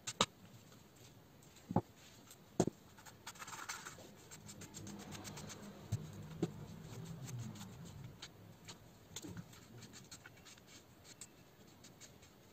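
Hands fitting parts to a Redcat Tornado S30 RC buggy's aluminium chassis and plastic centre differential: small clicks and taps throughout, three sharp knocks in the first three seconds, then rubbing and rattling of the parts for a few seconds in the middle.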